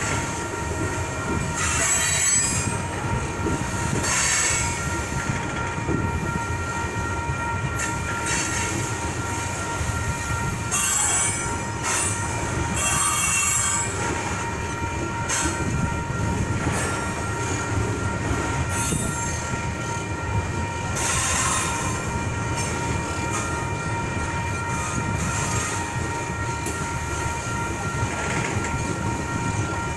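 Loaded coal hopper cars rolling through a grade crossing: a steady low rumble of wheels on rail, with shrill wheel squeal coming and going every few seconds. Under it the crossing's electronic bell sounds without a break.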